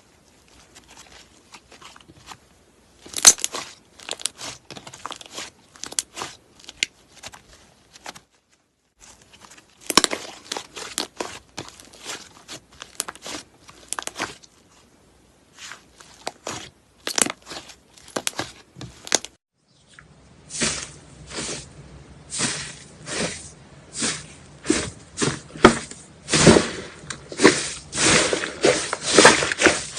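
Slime being squeezed, stretched and poked by hand, giving runs of crackling, crunchy pops and clicks. There are breaks between short clips, and the last clip, starting about two-thirds of the way in, is louder and denser, with a faint steady hum underneath.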